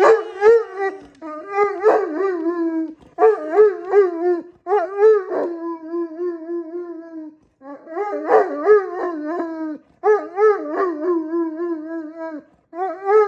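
Great Pyrenees dog 'singing': a string of about six long howls, each opening with a wavering, yodel-like rise and fall and settling into a held, steady note, with short breaths between them.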